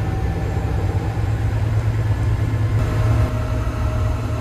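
Diesel engine of a Develon (Doosan) DL420 wheel loader idling steadily, with a faint steady whine joining about three seconds in.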